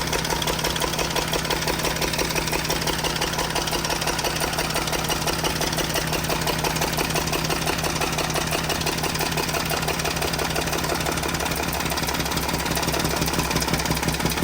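Freshly overhauled Mercedes-Benz ML350 V6 engine running steadily after a rebuild, with a fast, even mechanical clatter; the owner calls it noisy.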